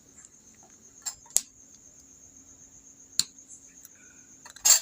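Four small sharp clicks and taps, the last one the loudest, as a tool pries a burnt SMD LED chip off an LED bulb's circuit board. A steady high-pitched whine runs underneath.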